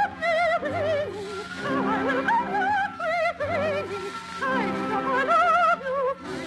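Operatic solo singing with wide vibrato, holding and moving between sustained notes over orchestral accompaniment, from a 1950 radio operetta broadcast.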